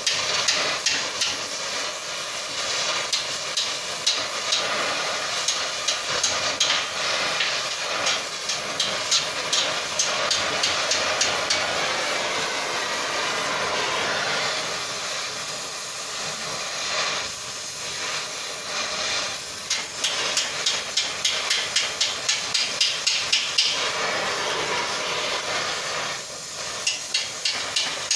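Gas torch with a cutting tip hissing steadily as it heats a wrapped steel collar, broken by several runs of quick, light hammer taps on the hot steel, about five a second. The runs are busiest in the second half.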